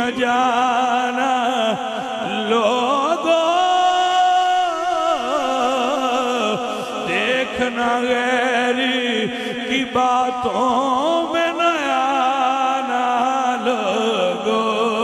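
A man sings a devotional manqabat solo into a microphone in long, drawn-out melismatic phrases with wavering ornaments. One note is held for over a second before the line moves on.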